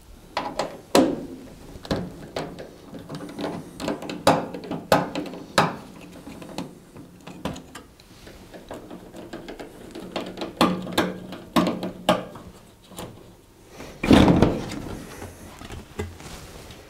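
Screwdriver clicking and scraping as screws are undone from the sheet-metal back of a Zanussi tumble dryer, with scattered knocks against the cabinet. About fourteen seconds in comes a louder, longer knock and scrape as the dryer's top panel is lifted off.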